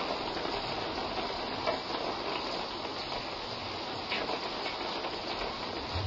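Heavy rain pouring down, a steady hiss with a few faint taps of drops.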